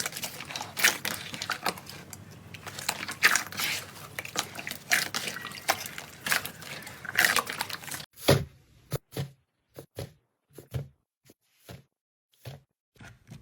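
Slime being squished and poked: dense wet crackling and squelching, then, after a sudden change a little past halfway, a string of separate sticky pops and clicks with silence between them.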